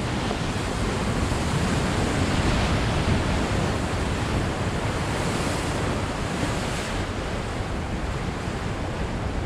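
Ocean surf washing and churning through a narrow rocky channel, a steady rushing noise that swells slightly a couple of seconds in, with wind buffeting the microphone.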